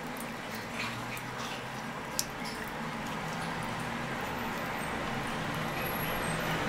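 A thin stream of water running from a tap into a sink while a cat laps at it, with soft irregular clicks of licking and one sharper click about two seconds in. The running-water noise grows steadily louder toward the end.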